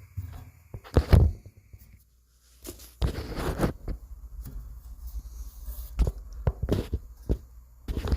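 Handling noises as tools and parts are moved about: knocks and thumps with some rustling, the loudest thump about a second in and several sharp knocks near the end.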